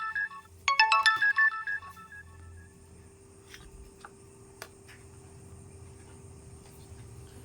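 A ringtone-style electronic melody of short stepped notes, heard once right at the start and again about a second in. It is followed by a faint steady hum with a few light clicks.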